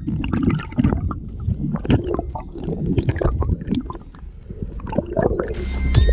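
Muffled gurgling and sloshing of water around a submerged action camera, in irregular surges. Electronic music comes back in near the end.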